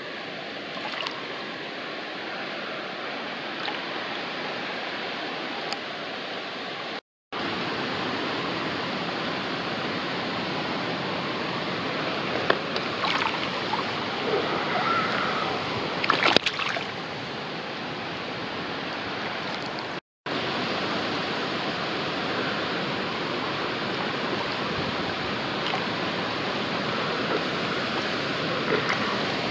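River water running steadily around a wading angler's legs, with a few sharper splashes about halfway through as a barbel is handled at the surface. The sound cuts out briefly twice.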